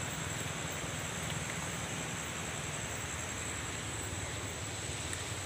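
A steady, even rushing noise, strongest low down, with a thin, continuous, high-pitched insect drone held above it.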